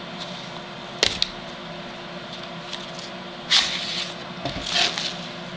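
Handling noise from a Cold Steel 12-inch Sax machete and its sheath: two sharp clicks about a second in, then two short bursts of rustling and scraping in the second half.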